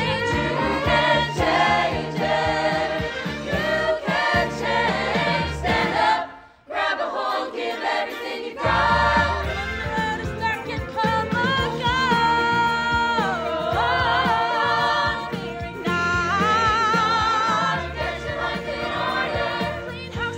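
A song with a group of voices singing over backing music. It drops out for a moment about six seconds in, then resumes.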